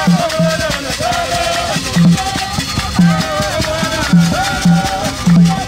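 A group of voices singing together in chorus, with hand claps, hand-held rattles shaking, and a short low note beating every half-second to a second.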